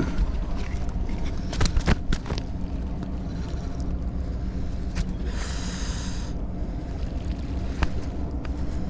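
Steady low rumble of wind on the microphone, with a few sharp clicks and a brief hiss about halfway through as a small flathead is handled in a cloth against a plastic measuring ruler.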